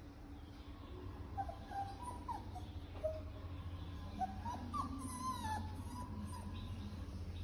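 A young animal gives a string of short, high-pitched whimpering squeaks, each sliding up or down in pitch, bunched around two and five seconds in.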